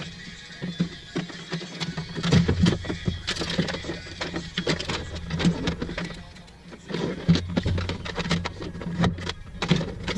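Irregular clicks, knocks and light rattles of small parts and tools being handled, over a low steady hum.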